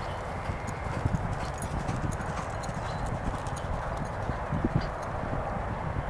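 Racehorses' hooves clip-clopping at a walk, irregular small knocks over a steady background rush.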